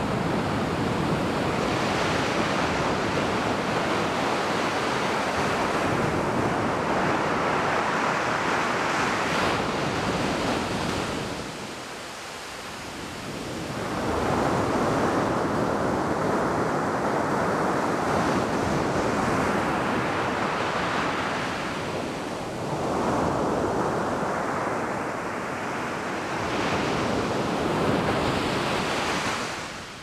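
Waves breaking and washing up a sandy beach in a steady rush of surf that swells and eases with each wave, falling to a lull once about twelve seconds in.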